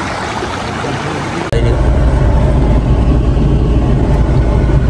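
Rushing water of a shallow flooded stream, then an abrupt switch about a second and a half in to the steady low rumble of a pickup truck's engine heard from inside the cab.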